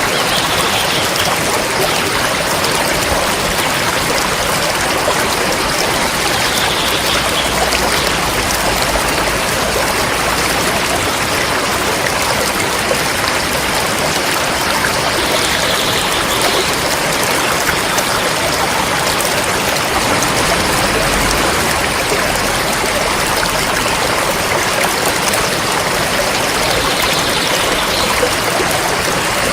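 River water flowing over rocks, a steady rushing and trickling.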